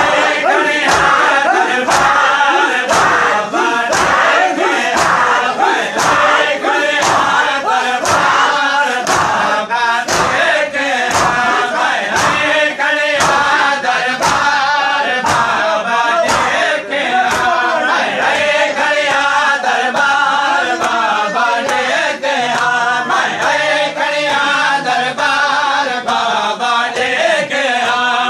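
Crowd of men chanting a Shia noha in unison, with the steady slaps of matam (open hands striking bare chests) keeping time at about two beats a second.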